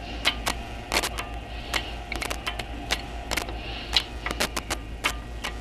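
Socket ratchet wrench clicking in short, irregular runs as a threaded part is backed out, with a low steady hum underneath.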